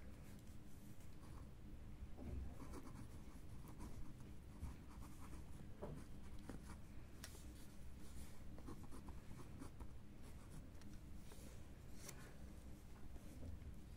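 Pen scratching on lined notebook paper in short, irregular strokes as words are handwritten, faint, over a low steady background hum.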